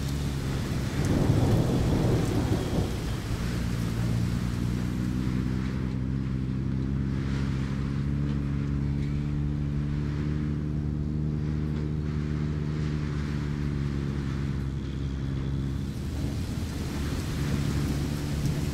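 Cartoon storm sound effects: steady rain with a rumble of thunder about a second in and another near the end, over a low steady hum.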